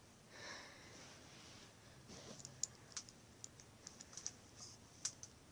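Faint, irregular light clicks of a plastic fidget spinner being handled in the fingers, after a soft hiss in the first second.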